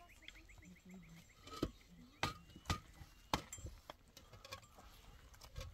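Concrete blocks being set and knocked into place on a block wall: a few sharp knocks, the loudest ones in the middle.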